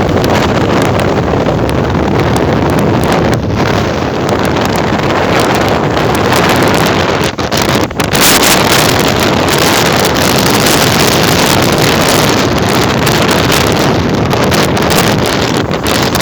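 Strong wind buffeting the microphone: a loud, steady rumbling roar with no break, briefly dipping about halfway through.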